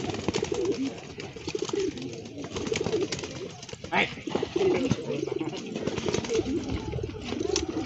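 Several domestic pigeons cooing at once, their calls overlapping continuously, with a couple of sharp clicks.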